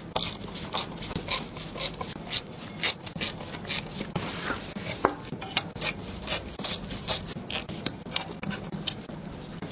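Hands handling small hardware parts: irregular light clicks, taps and rubbing scrapes, several a second.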